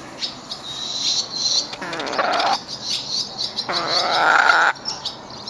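Domestic hen vocalizing: a few thin high chirps, then two longer drawn-out calls about two seconds apart, the second cutting off abruptly.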